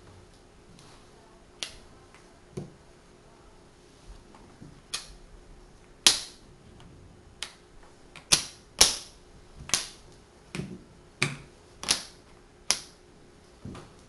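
Magnetic wooden building blocks clicking sharply as they snap together, one after another at uneven spacing. The clicks come faster in the second half, and the loudest falls about six seconds in.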